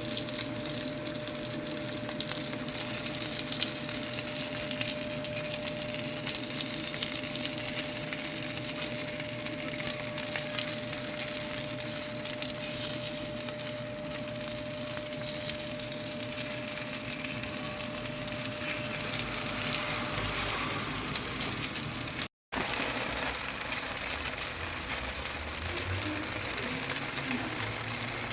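Potstickers frying in oil in a pan, sizzling steadily, with a faint steady hum that stops about twenty seconds in. The sound cuts out for a moment a couple of seconds later.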